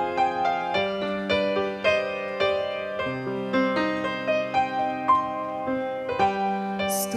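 Slow instrumental introduction to a hymn: single notes played one after another in a gentle melody over held lower notes, with a short hiss right at the end.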